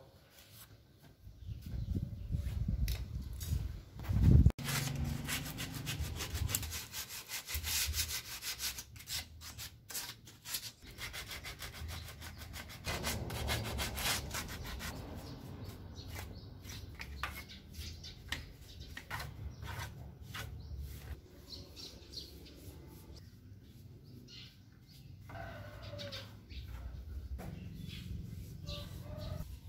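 Sandpaper rubbed by hand along the balau wood slats of a shoe rack, in many short scratchy strokes. A loud low thump comes about four and a half seconds in.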